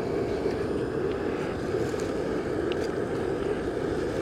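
Pocket-rocket-style canister gas stove burning on full blast: a steady hiss of gas and flame under a small pot of water.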